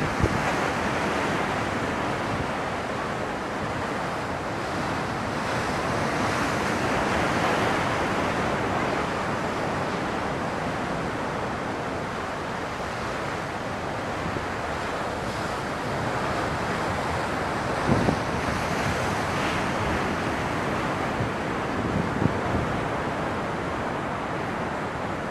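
Rough storm sea: a steady rush of breaking waves and surging white water against rocks and a pier, swelling and easing slowly, with wind on the microphone.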